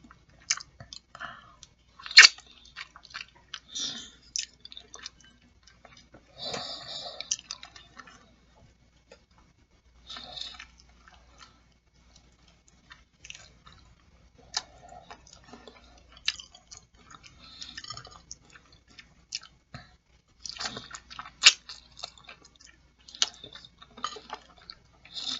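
Close-miked mouth sounds of a person eating boiled chicken feet: wet chewing and lip-smacking, with irregular sharp clicks and short smacks coming in clusters with brief pauses between.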